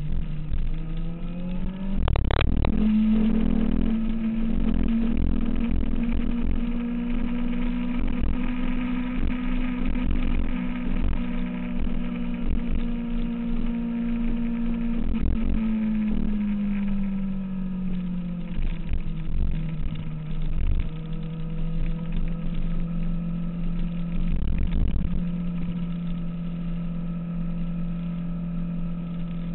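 2006 Kawasaki ZX-6R's inline-four engine running under way: its note climbs about two seconds in, holds steady, then eases off to a lower steady pitch around sixteen to eighteen seconds in. A brief thump comes as the note climbs.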